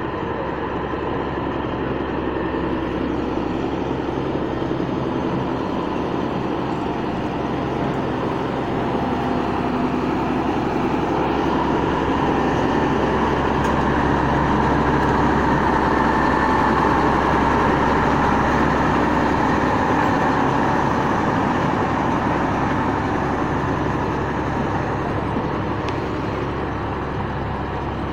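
Excavator's diesel engine running steadily under work, with a continuous low engine note; it grows louder toward the middle and eases off again near the end.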